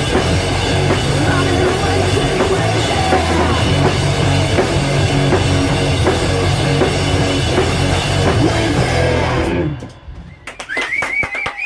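Rock band playing live, with a full drum kit and loud distorted instruments, until the song stops about ten seconds in. A few hand claps and a voice follow near the end.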